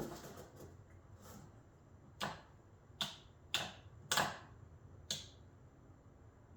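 Irregular sharp clicks and light knocks of hard objects being handled, about seven over five seconds, the loudest a little past the middle.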